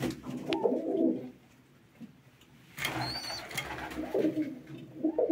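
Domestic pigeons cooing, a few low rolling coos: one about a second in and more near the end, with a brief rustle of feathers or handling about three seconds in.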